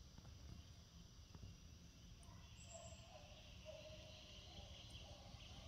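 Near silence: faint outdoor ambience with a steady low rumble, and faint high calls from about halfway through.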